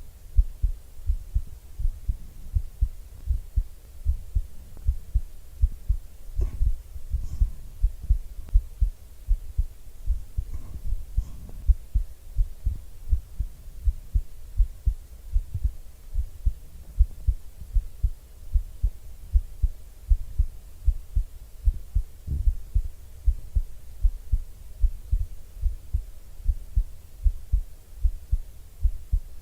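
A person's heartbeat heard close up: low thumps repeating in a steady rhythm, with a couple of faint brushing noises about six and eleven seconds in.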